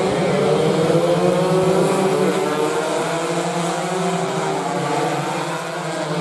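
Several stock-class 116 cc two-stroke underbone racing motorcycles running hard at race pace. Their engine notes overlap and keep rising and falling in pitch as the bikes accelerate.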